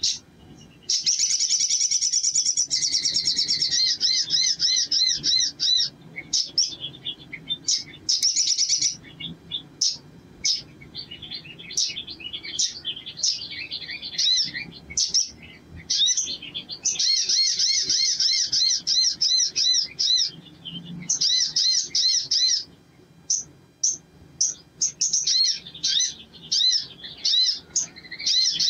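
Caged male sunbird singing: loud, high, fast twittering trills of rapidly repeated notes, in runs a few seconds long broken by short pauses and single chirps.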